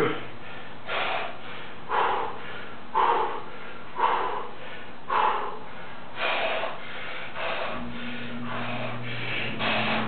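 A man breathing hard in short, forceful exhales, about one a second, as he strains to bend a steel bar by hand.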